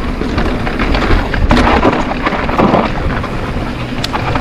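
Wind buffeting the action camera's microphone while a mountain bike rolls fast downhill on a dirt trail, with tyre rumble and the bike rattling over bumps. It is roughest and loudest for about a second in the middle, with a couple of sharp clicks.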